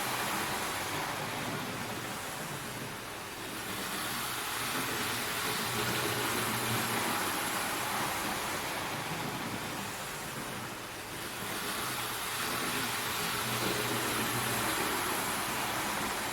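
Hornby OO-scale model steam locomotive running fast on the layout track: a steady electric motor whir with wheel-on-rail rumble. It grows fainter and louder again twice as it circles the layout.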